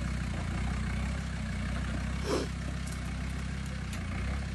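Off-road 4x4's engine running steadily at low revs as the vehicle crawls over rocks, with a single sharp knock about two seconds in.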